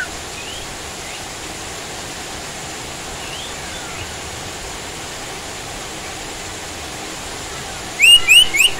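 Sirtu songbird calling over a steady rain hiss: a few faint short chirps, then near the end a loud quick run of four or five sharply rising notes.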